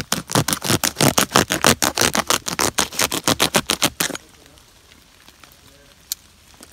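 Rapid scraping strokes on dry dead wood, about seven a second, as tinder is shaved off with a blade. The strokes stop about four seconds in.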